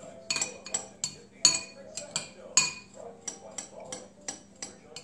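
A metal spoon stirring dry seasoned bread crumbs in a ceramic bowl, clinking against the bowl about three times a second. The clinks are loudest in the first half.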